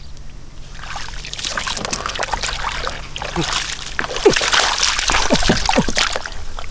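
Water splashing and sloshing in shallow field water, irregular and busier in the second half.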